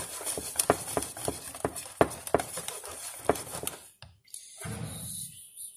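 Wire whisk beating cake batter in a mixing bowl, its wires clicking against the bowl in quick, uneven strokes. The strokes stop about four seconds in, followed by a short muffled sound.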